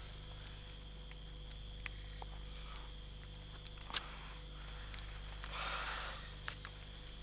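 Forest ambience of insects trilling steadily at a high pitch, over a low hum. A few faint clicks and a brief rustle come about five and a half seconds in.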